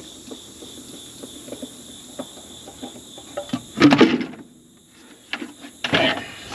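A spin-on fuel filter is handled and removed from its head on a combine's diesel engine, then dropped into a plastic bucket. There are light clicks of handling, then a loud clatter about four seconds in and another rattle near the end.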